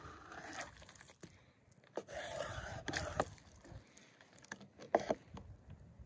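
A knife slicing through raw liver on a wooden cutting board: soft wet cutting and scraping, with a few sharp taps of the blade on the board, the loudest near the end.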